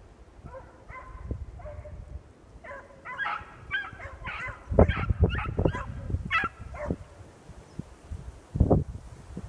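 Young beagles baying and yipping on a rabbit trail: a string of short, pitched cries, a few at first and then a quick run of them through the middle, with wind buffeting the microphone.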